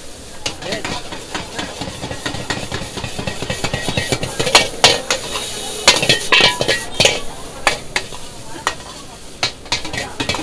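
A steel ladle clanging and scraping against a wok as noodles are stir-fried, with sizzling underneath. The strikes come irregularly and are loudest in the middle.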